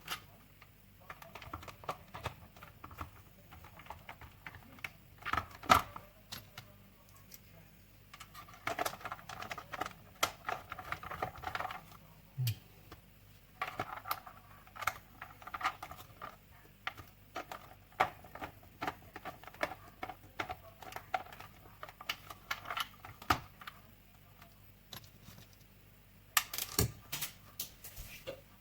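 Screws being driven by hand into the plastic housing of a cordless stick vacuum: runs of rapid clicking and scraping, with sharper knocks about 6 seconds in and near the end.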